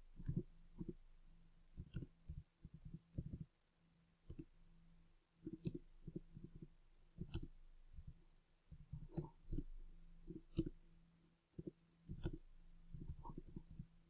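Computer keyboard keys clicking in irregular bursts as code is typed, faint, over a low steady hum.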